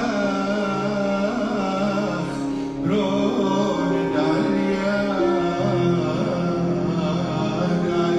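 Chaldean hymn: a voice singing a slow, ornamented melody over a sustained instrumental accompaniment, with a short breath between phrases a little under three seconds in.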